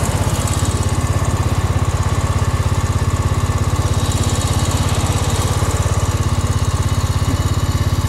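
An engine running steadily at an even idle, with a fast, regular pulse.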